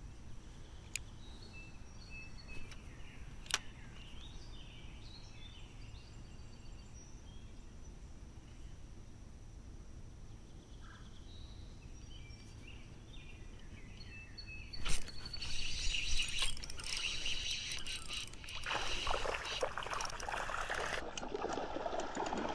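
Quiet creek ambience with birds chirping and a few sharp clicks. About fifteen seconds in, a sudden splash, followed by several seconds of splashing and sloshing water.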